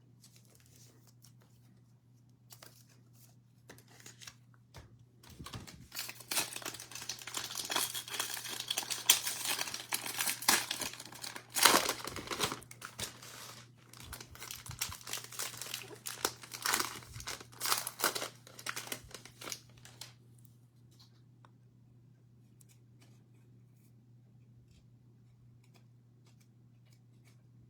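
Cellophane wrapper of a trading-card cello pack being torn open and crumpled, crinkling and crackling for about fifteen seconds starting about five seconds in.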